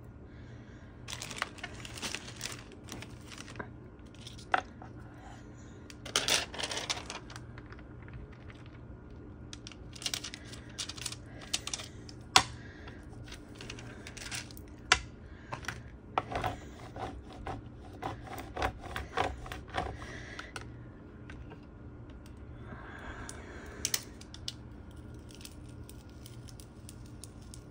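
Craft vinyl decal and clear transfer tape being handled on a glass craft mat: bursts of peeling and crinkling as the tape and paper backing are pressed and pulled apart, with scattered sharp taps and clicks.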